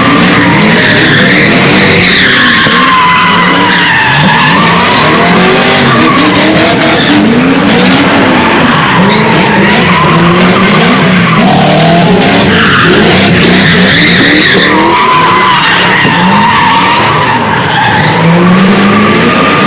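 Cars drifting on pavement: tyres squealing in long, wavering screeches over engines revving up and down. Loud throughout.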